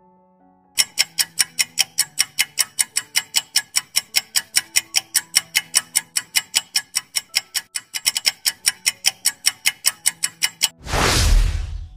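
Countdown-timer ticking sound effect: rapid, evenly spaced clock-like ticks, roughly five a second, over faint soft background tones. The ticking stops shortly before the end and is followed by a brief loud whoosh.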